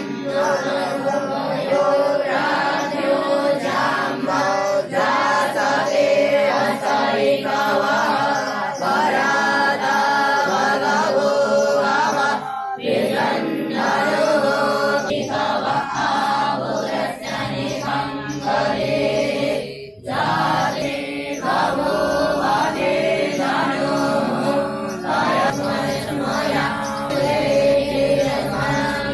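A group of Vedic students chanting Sanskrit Vedic mantras in unison, with short breaks for breath about 13 and 20 seconds in.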